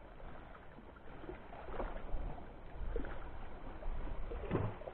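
Sea water lapping and sloshing against shoreline rocks, with a few short splashes, about two, three and four and a half seconds in, over a low rumble of wind on the microphone.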